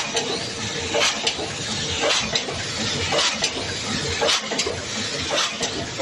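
Open-die cold-heading screw-making machine running, a steady mechanical clatter with a sharp knock about once a second.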